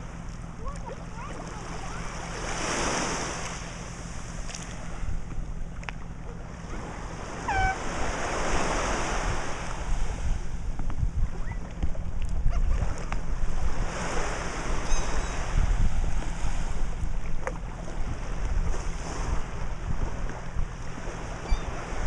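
Small surf washing onto a sandy beach, swelling and fading every few seconds, with wind rumbling on the microphone, heavier in the second half.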